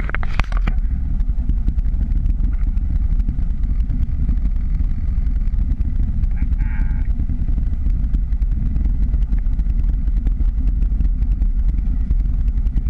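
Wind buffeting the action camera's microphone: a loud, steady low rumble that flickers but holds no pitch. A short higher sound comes about six and a half seconds in.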